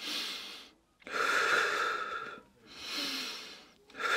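A person breathing in and out in regular, drawn-out breaths, about one every second.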